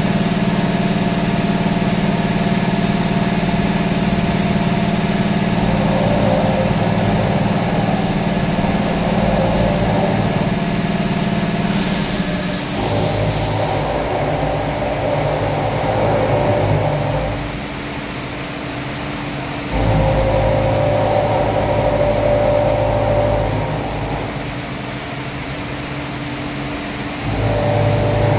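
CNC vertical machining centre running: a steady machine hum with several held tones, which drops quieter for a couple of seconds twice and changes its tone pattern as the machine works. A burst of hiss about twelve seconds in lasts a second or two.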